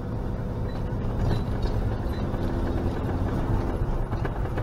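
A motorhome's engine and road noise heard from inside its cab while driving at steady speed: a low, even drone.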